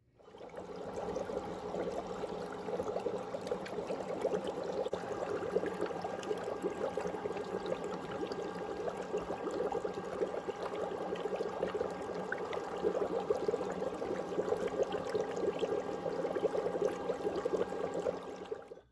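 Steady trickling, running water with a fine crackling texture.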